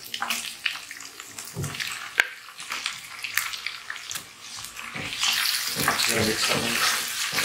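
Raw chicken pieces sizzling in hot ghee in a wok, with sharp clicks and scrapes of a wooden spoon against the pan. The sizzle grows louder and denser about five seconds in as the chicken is stirred through the oil.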